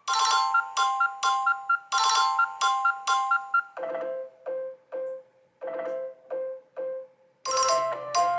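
iPhone iOS 17 ringtones playing: short repeating melodies of bright, chime-like notes. About halfway through the notes turn softer and lower, and near the end a fuller tone with a low bass line begins.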